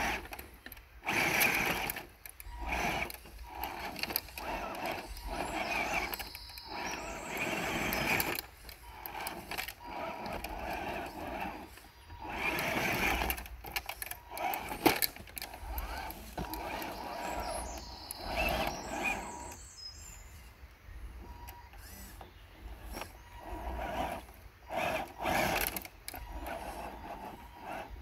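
Radio-controlled scale crawler's electric motor and gears whirring in short stop-start bursts as the throttle is worked.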